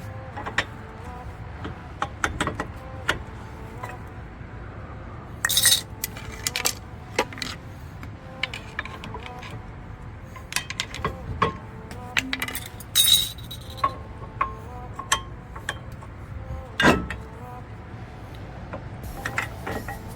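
Irregular metallic clinks and knocks of hand tools and brake parts being handled during a brake pad change, with a few louder, sharper rattles along the way.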